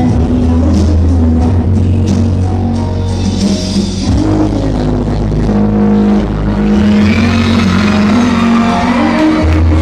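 Loud dance music with a heavy bass line.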